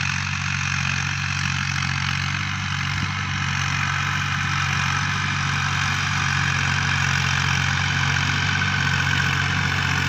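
Diesel tractor engines running steadily, a low even drone that holds the same pitch throughout.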